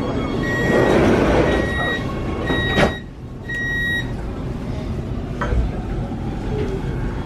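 Metro train's door-closing warning: a high electronic beep repeating about once a second, with the doors shutting in a sharp knock about three seconds in, after which the carriage sounds quieter. A last beep sounds just after the doors close.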